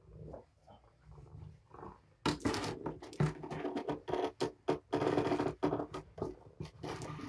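Cloth sheet rustling and scratching as it is pulled about on the floor with kittens scrambling and clawing on it, faint at first and loud from about two seconds in, in quick rough strokes.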